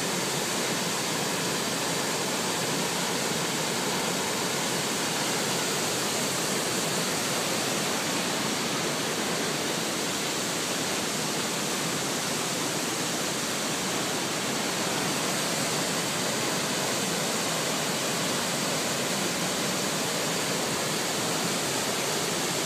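Dawn Mist Falls pouring onto boulders at its base: a steady, unbroken rush of falling water, heard close enough that the spray reaches the listener.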